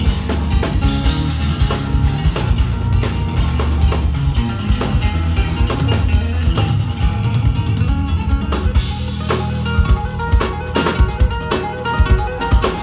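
Instrumental progressive metal played live by a band: electric guitar over a busy drum kit with kick drum and rimshots. The drum hits grow denser in the last few seconds.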